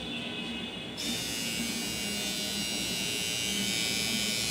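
Small battery-powered grooming trimmer with a beard-trimmer head, switched on about a second in and then running with a steady buzz.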